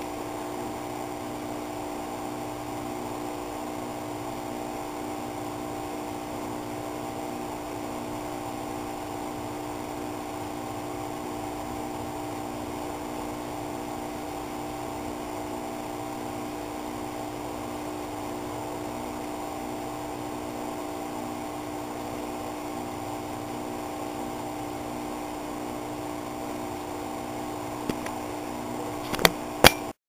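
A steady mechanical hum holding several constant tones, with a few sharp clicks near the end.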